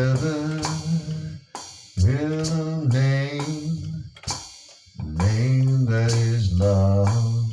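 Instrumental intro of a worship song: a drum kit with cymbal, hi-hat and snare hits under long held melody notes and a heavy low bass, played in phrases with short breaks between them.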